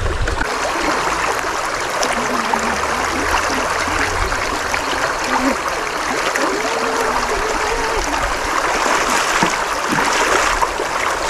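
Shallow mountain river rushing steadily over stones and pebbles close by, with feet wading through the water.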